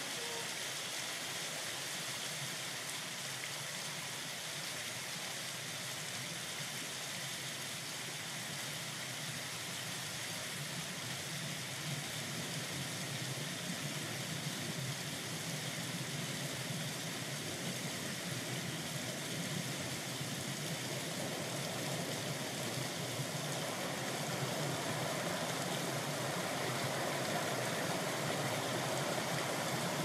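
Water splashing and running off a turning wooden waterwheel, a steady rush that grows a little louder toward the end.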